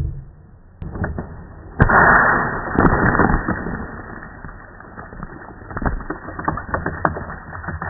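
Air-pressurised water bottle rocket launching about two seconds in: a sudden burst as the bottle lets go of the launcher, then a rushing hiss of water and air that fades over a second or two. A run of small sharp ticks follows as the spray of water falls back.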